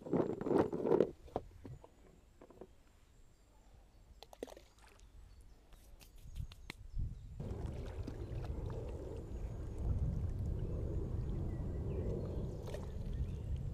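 An inflatable dinghy on a lake, with water splashing against the hull and oars and a few hollow knocks of gear aboard. A louder splash comes right at the start, and a steady low rumble takes over about halfway through.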